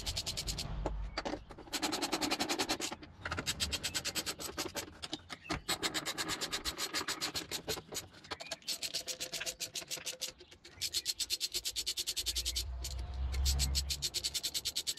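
Socket ratchet clicking in rapid runs with short pauses as the engine mount bracket bolts are wound in and tightened.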